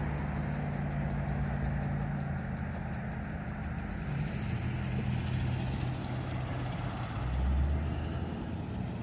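A motor vehicle's engine idling steadily, with a brief low swell about seven seconds in.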